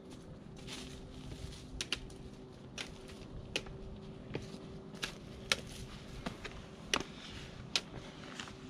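Trekking pole tips clicking on rock, with footsteps on a rocky trail as a hiker climbs. The sharp clicks come irregularly, roughly one a second.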